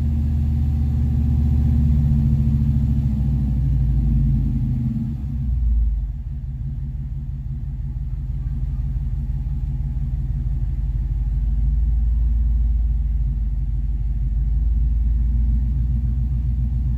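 A Chevy 350 small-block V8 held at a fast idle of about 2000 rpm, heard from inside the cab. About five to six seconds in, the throttle is released and the engine drops back to a low idle and runs on steadily.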